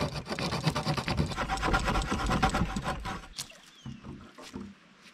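A large knife sawing into a green sapling's trunk in quick, rasping back-and-forth strokes. It stops about three seconds in, leaving only a few faint knocks.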